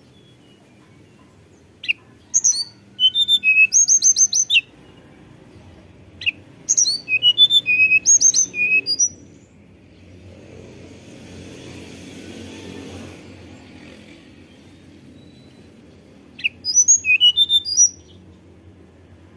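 Male hill blue flycatcher (tledekan gunung) singing in three phrases of quick, high, flute-like whistled notes and trills. The phrases come about two seconds in, about seven seconds in, and near the end. A faint rushing noise swells in the middle.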